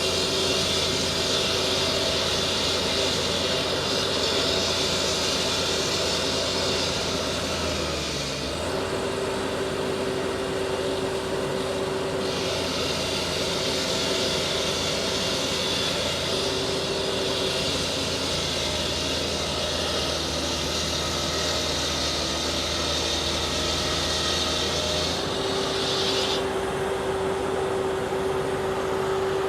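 Concrete saw cutting asphalt: the engine runs steadily while the blade gives a high grinding hiss. The hiss drops away about eight seconds in, comes back about four seconds later, and drops away again near the end.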